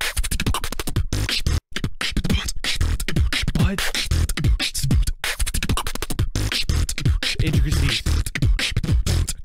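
Freestyle beatboxing: a fast, dense run of mouth-made kicks, snares and clicks over deep bass tones that slide down in pitch. It cuts out for an instant about one and a half seconds in.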